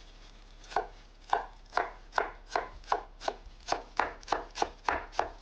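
Knife chopping parsley: about a dozen sharp, even strokes, roughly three a second, starting just under a second in.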